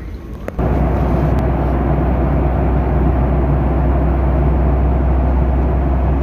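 Steady drone of engine and airflow noise inside an airliner cabin in flight, with a heavy low rumble; it starts abruptly about half a second in.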